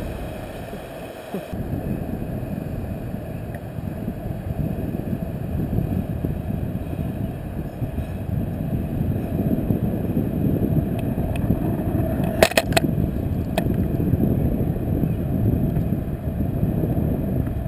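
Wind rushing and buffeting against the microphone of a camera fixed to a swinging canyon-swing rope, a steady low rush that dips briefly about a second in. A few sharp clicks sound about two-thirds of the way through.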